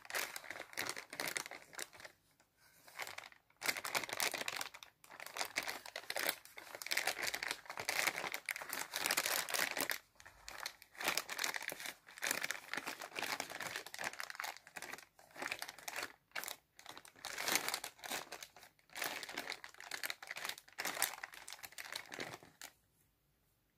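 Plastic shipping bags crinkling and rustling in irregular bursts as they are pulled open and handled, stopping near the end.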